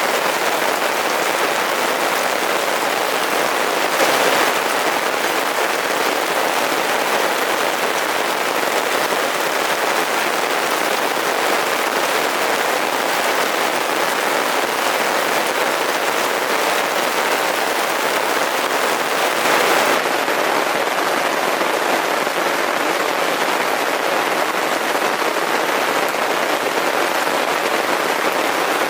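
Steady heavy rain, a dense even hiss that briefly grows a little louder about four seconds in and again near twenty seconds.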